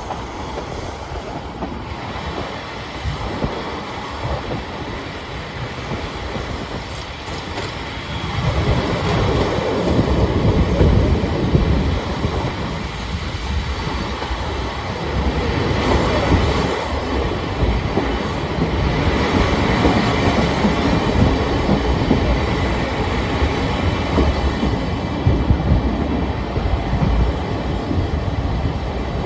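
Old-type passenger coach of the Chichibu Railway Paleo Express running along the line: a steady rumble of wheels on rail with clacking over the rail joints, heard from inside the car, growing louder about a third of the way in.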